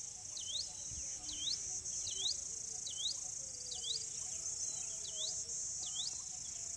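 A steady high-pitched insect drone, with a bird repeating a short call that dips down and back up in pitch about once every 0.8 seconds.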